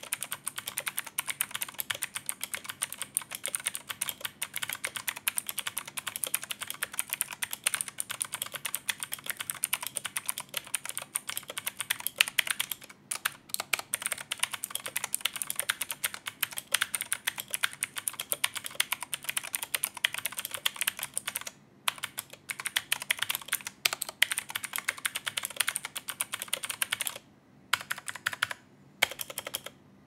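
Typing on an Armaggeddon MKA-5R mechanical keyboard with blue switches: a fast, dense run of clicky keystrokes, broken by a few short pauses in the second half.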